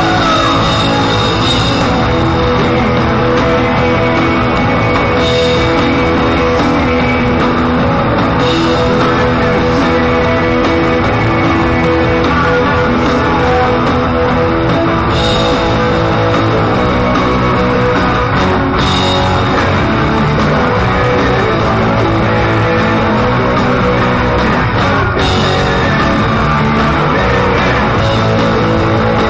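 Live rock band playing loudly, with the drum kit heard close up alongside electric guitars.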